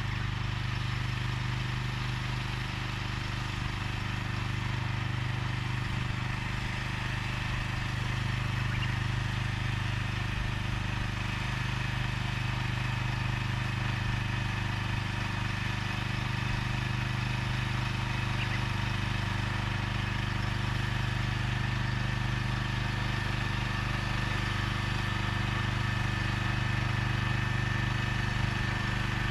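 Engine of a seedling transplanter running steadily at an even speed while it plants corn seedlings in the field.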